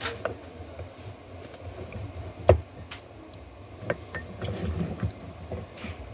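Small metallic clicks and scrapes of a screwdriver turning screws out of an IP camera's circuit board, with handling knocks from the camera's metal and plastic parts; one sharper knock about two and a half seconds in.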